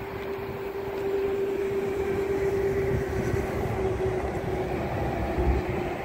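Distant engine drone: a steady held hum over a low rumble, growing a little louder about a second in.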